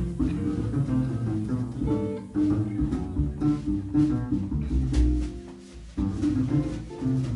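Live jazz combo playing: guitar in the lead over walking double bass and drums, with a short lull about five and a half seconds in.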